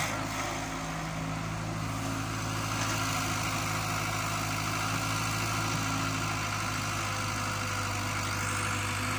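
Diesel engine of an E70 hydraulic excavator running steadily at idle, with an even low hum that neither revs up nor dies down.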